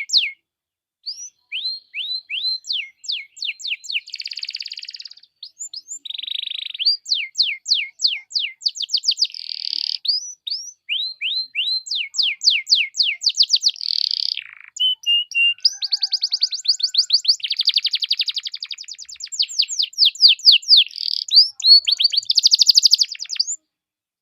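Canary singing a fast, varied song: quick runs of repeated downward-sweeping notes, broken up by buzzy trills. The song stops near the end.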